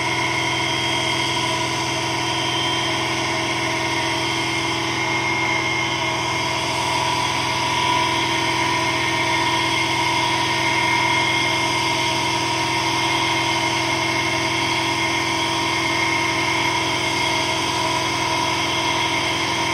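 Electric motor running steadily under load, spinning a wooden disc fitted with magnets past a copper pipe coil: a constant hum with several steady tones.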